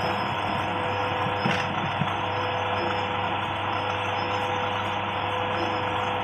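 Macaroni extruder machine running: a steady motor hum with a whirring mechanical noise, and two small knocks about a second and a half and two seconds in.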